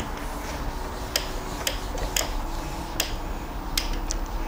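A marker tapping and clicking against a whiteboard while writing and being set down: about five sharp, separate clicks a half-second to a second apart, over a low steady hum.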